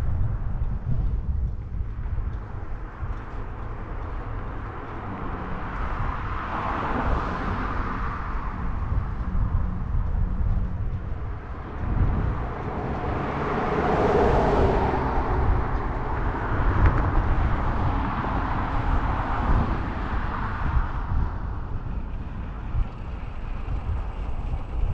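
Wind rumbling on the microphone of a moving bicycle, with road traffic swelling and fading as vehicles pass, the loudest about fourteen seconds in.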